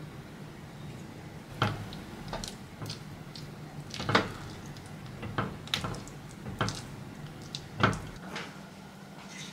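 Utensil stirring thick clam risotto in a saucepan to mix in a knob of butter: soft squishing of the rice with irregular taps and scrapes against the pot.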